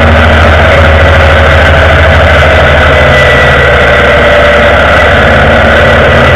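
Indian Vintage motorcycle's V-twin engine running steadily under way, heard close up from a camera mounted on the legguard.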